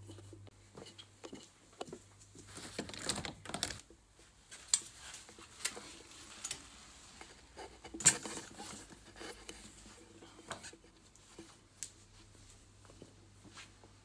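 Brompton folding bike being handled: a run of light clicks, knocks and rustling, with one sharp click about eight seconds in that is the loudest.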